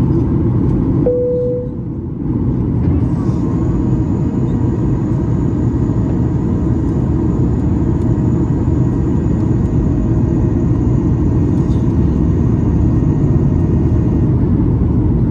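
Cabin noise inside a Boeing 737 MAX 8 airliner in flight: a steady, loud rumble of airflow and its CFM LEAP-1B engines. A short tone sounds about a second in, while the rumble briefly dips.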